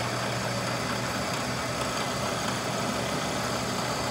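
Steady hum of a running shop machine motor, with a constant low tone and no cutting sound: the end mill is lifted clear of the work.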